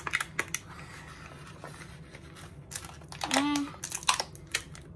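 Plastic toy packaging and small plastic accessories being handled: crinkling with scattered sharp clicks and taps. A short child's vocal sound comes a little past three seconds in.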